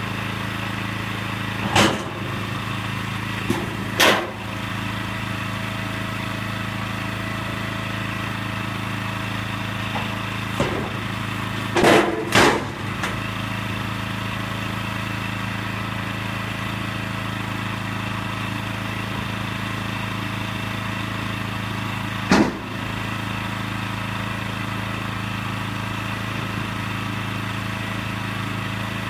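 Small engine running steadily, with about five loud metal clanks as the steel ramps and parts of the portable truck scale are set down: one near 2 s, one near 4 s, a quick pair around 12 s and one near 22 s.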